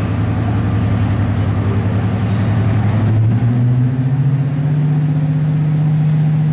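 Class 55 Deltic locomotive's twin Napier Deltic two-stroke diesel engines running under power as it draws slowly away from the platform. The engine note steps up in pitch about halfway through and holds at the higher note.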